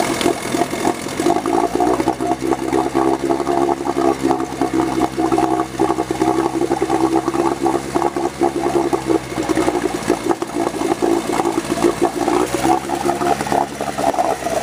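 Two-stroke twin-cylinder outboard (1988 Sears Gamefisher 9.9 hp, a Force/Chrysler motor) running in a test tank of water, just after a water pump impeller replacement. Its revs rise about a second in, hold steady, and drop back near the end.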